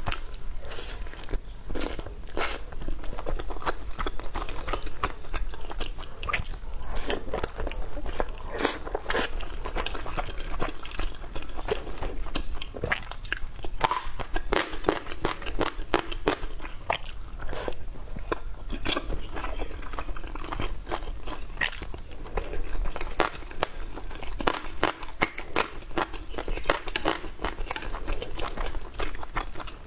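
A person eating close to the microphone: continuous biting and chewing of steamed buns with dried pickled radish, full of crisp crunches and wet mouth clicks coming irregularly, several a second.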